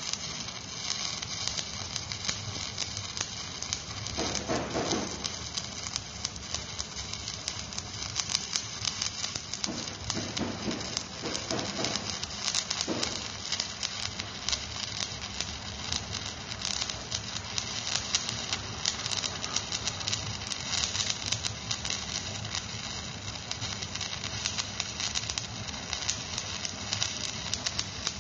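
Electric arc welding on an excavator bucket adapter: the arc burning with a steady, dense crackle and sizzle as a weld bead is run.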